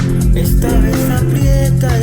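A song with a steady beat and bass line; a voice starts singing about half a second in.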